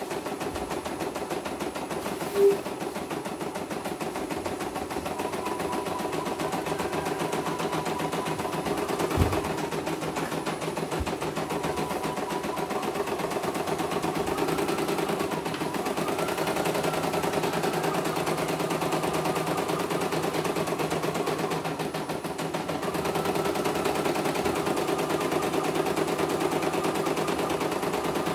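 CNY E900 computerised embroidery machine stitching out a design: a fast, steady rattle of needle strokes as the hoop moves, the machine running smoothly on a test stitch-out. A brief tone sounds about two seconds in, and a single knock about nine seconds in.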